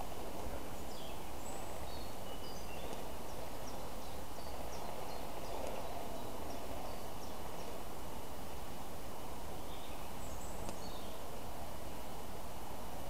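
Wild birds chirping: a run of short, high chirps in the first seven seconds and a few more about ten seconds in, over a steady outdoor noise background.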